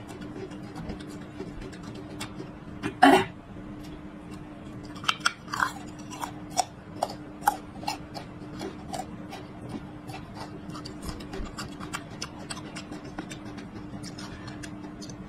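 Close-up crunchy chewing of whole peeled garlic cloves, a run of short crisp crunches and wet mouth sounds, with one loud crunch about three seconds in. A faint steady hum runs underneath.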